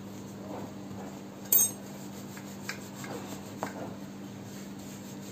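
Kitchen utensils being handled: one sharp clink about one and a half seconds in, then a few lighter knocks, as dough is pressed out and a wooden rolling pin is taken up on a marble rolling board. A steady low hum runs underneath.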